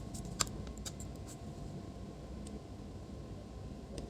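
A few light, sharp clicks of small parts being handled on the bench, mostly in the first second and a half and once more near the middle, over a steady low background hiss.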